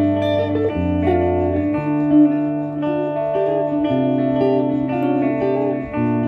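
Two guitars playing together: low notes, each held about a second before moving to the next, under higher picked melody notes.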